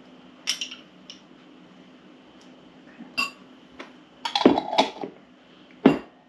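A spoon clinking against a glass relish jar in a few separate clicks, then a quick run of knocks as the jar's plastic lid is put on, and a loud knock near the end as the jar is set down on the table. A faint steady hum runs underneath.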